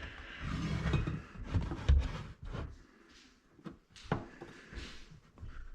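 Dull thumps and knocks, with a few sharp clicks, from someone moving about in an empty room.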